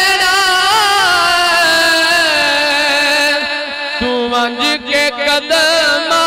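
A man's voice singing a naat through a microphone and sound system, drawing out long wavering melismatic notes on a vowel rather than clear words. About four seconds in he breaks briefly, then picks up again on a steadier held note.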